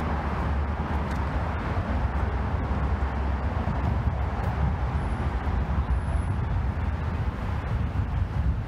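Steady outdoor city background noise: road traffic running with a low rumble, and no distinct events standing out.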